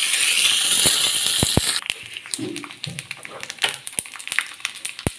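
Fresh curry leaves hitting hot oil in a small pan of frying rice, mustard seeds and dried red chillies: a loud sizzle that dies down after about two seconds into scattered crackling and popping.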